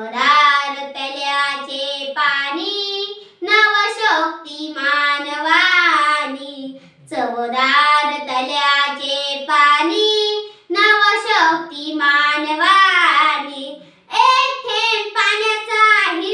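A young girl singing unaccompanied, in phrases of about three to four seconds with drawn-out, wavering notes and short breaks between them.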